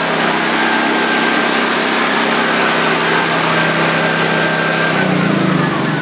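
Small pull-start generator engine running steadily just after being started, with a steady even note; its pitch shifts near the end.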